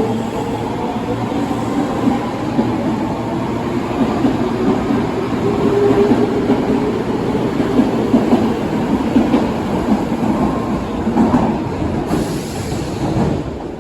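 Osaka Metro 22 series subway train pulling out and running past, its wheels rumbling and clattering on the rails, with a faint rising motor whine early on as it gathers speed. The sound dies down near the end as the train leaves.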